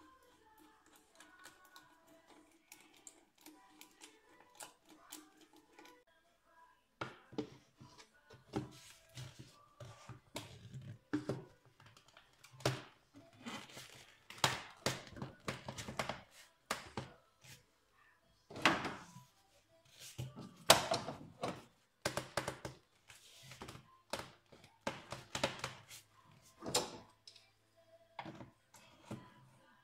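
Irregular knocks, clicks and clinks of hand tools and engine parts being handled during a coolant pump job, starting about seven seconds in and coming thick and fast, with a low hum underneath.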